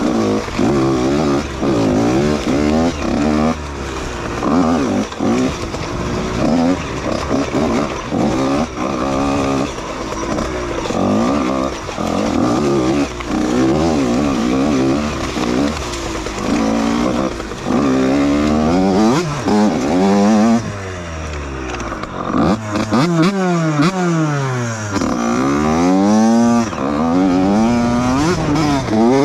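Dirt bike engine under way, the throttle opened and closed over and over so the pitch keeps rising and falling every second or two, with a short easing off about two-thirds of the way through.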